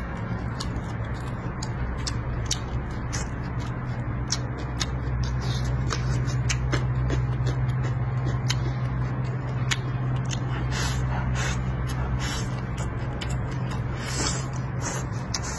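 Close-miked eating sounds: chewing and lip-smacking, with irregular sharp clicks, over a steady low hum.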